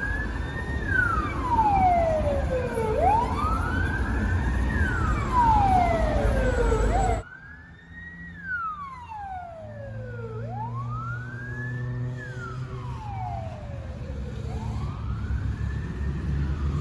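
Russian ambulance siren in wail mode, sweeping slowly up and down in pitch, each rise and fall taking about four seconds, over traffic and engine noise. The sound cuts abruptly about seven seconds in, and the wail carries on quieter over a low engine hum.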